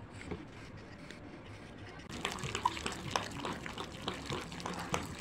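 Wet, sticky slime being stirred and squeezed by hand in a glass bowl. About two seconds in it turns into a dense run of small squelches and crackles.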